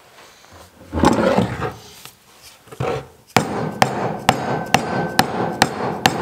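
Mallet striking PVC pipe fittings, seating the end caps onto the pipe: sharp blows at about two a second, starting a little past halfway, after some softer knocks of the parts being handled.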